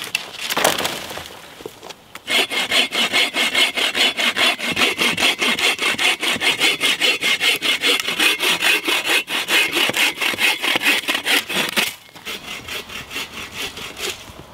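Folding hand saw cutting through a fallen branch with fast, even back-and-forth strokes. It starts about two seconds in, after a rustle of branches, and grows fainter near the end.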